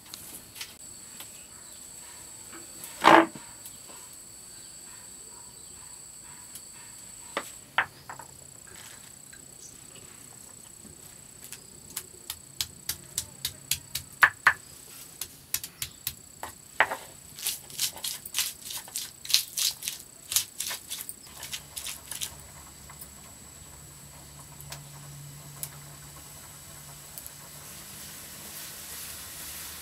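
Garlic cloves being crushed on a flat stone grinding slab with a round hand stone: a quick run of sharp stone-on-stone knocks through the middle, after one louder single knock near the start. A steady high insect trill runs underneath.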